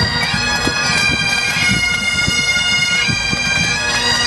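Pipe band of Great Highland bagpipes playing a tune over their steady drones, with regular low beats underneath.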